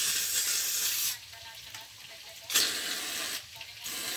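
Aerosol can of shaving foam spraying in bursts: a hiss that stops about a second in, a second burst a bit past the middle, and a short one near the end.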